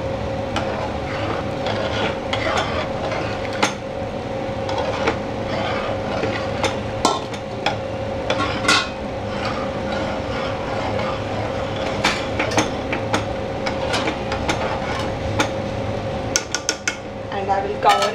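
A ladle stirring thick lentil-and-mutton stew in a steel pot, scraping and knocking against the pot's sides, over a steady hum. Near the end a steel lid clatters onto the pot.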